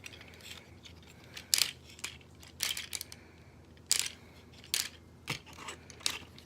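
Hard plastic clicks and knocks from a Transformers figure being handled and posed, about half a dozen sharp separate ones a second or so apart.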